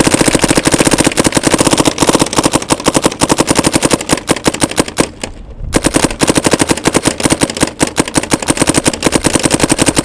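Dye M3s electronic paintball gun firing a rapid, steady stream of shots on compressed air (HPA), with a short break about five seconds in before the stream picks up again.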